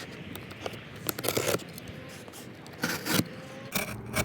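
A shipping box being opened and its packaging handled: several short scraping, rubbing and tearing noises.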